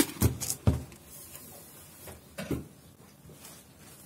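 Metal bread-machine baking pan shaken back and forth and knocked to free the baked loaf: a few sharp knocks in the first second, then one more knock about two and a half seconds in.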